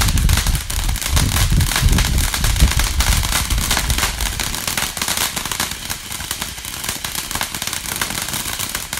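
Ground fountain firework spraying sparks: a steady hiss packed with rapid crackling pops, with heavier low thumps over the first few seconds that ease off after about halfway.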